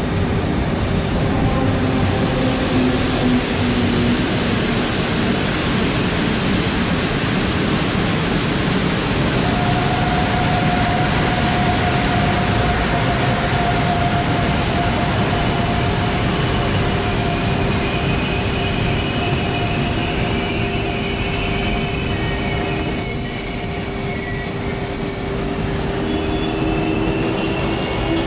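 PKP Intercity passenger train pulling into a station platform: a steady rumble of coaches rolling past. Thin, steady metallic squealing joins from about ten seconds in, with more high squealing tones in the last third as the train slows to a stop.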